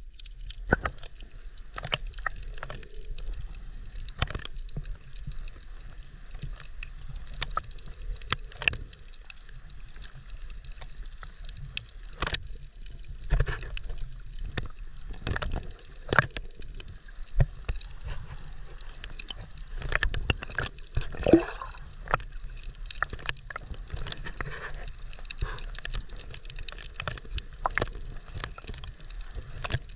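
Water sloshing and gurgling around a camera held at the surface over a shallow reef, with many irregular sharp clicks and pops and a short gurgle about two-thirds of the way through.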